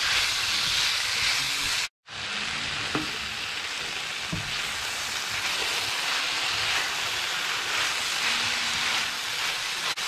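Sliced peppers and onions gently sautéing in a fry pan with a steady sizzle, stirred with a slotted spatula that scrapes lightly against the pan a few times. The sound cuts out for an instant about two seconds in.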